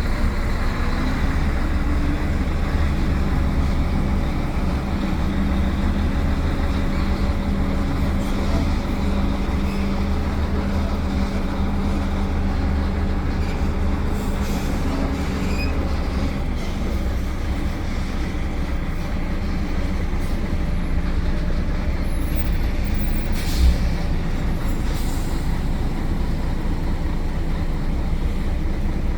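Container truck's diesel engine running steadily on the road, with tyre and road noise. A short thump comes a few seconds before the end.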